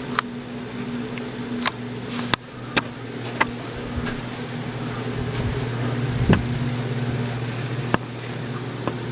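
Harbor Breeze Marco Island ceiling fan running with a steady low motor hum: the fan is unusually noisy. Several sharp clicks and one louder knock a little past the middle come through over the hum.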